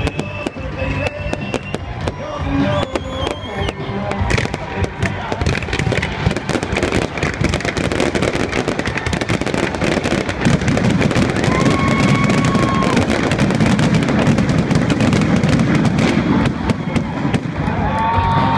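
Fireworks bursting overhead in a dense run of crackling bangs, with music playing underneath. The noise gets louder about ten seconds in.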